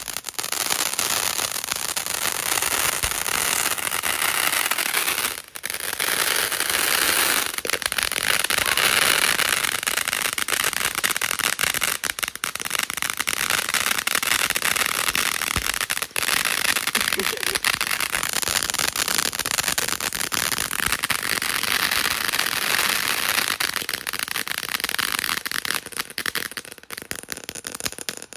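Ground-fountain fireworks spraying sparks: a loud, continuous hiss shot through with crackling. It breaks off briefly about five and a half seconds in, and thins to a sputtering crackle near the end.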